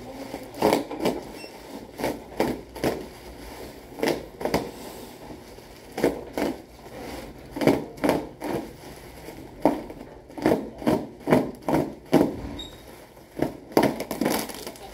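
Bubble wrap being pulled and torn open by hand, crinkling and rustling in irregular crackles, several a second at times.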